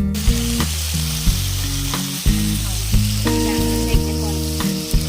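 Food frying in hot oil in a pan, with a steady sizzle, over background music with a regular beat.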